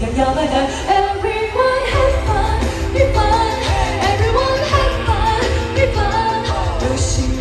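Pop song performed live through a concert sound system: a singer's melody over a band with a heavy bass line.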